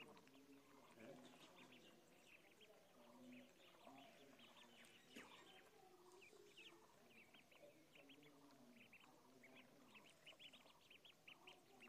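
Faint peeping of a brood of ducklings: many short, high calls overlapping in a steady stream.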